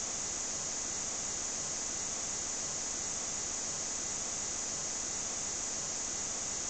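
Steady static hiss, brightest in the high treble and unchanging in level, the noise floor of a phone's remote-monitoring audio stream.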